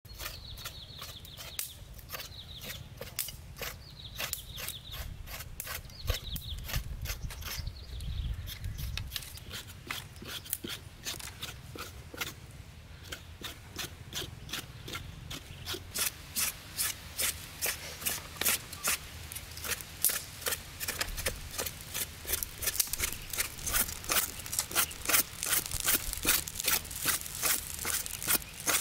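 A knife blade scraping over a pig's head on a wooden chopping block in steady, rhythmic strokes. The strokes quicken to about three a second and get louder over the last dozen seconds.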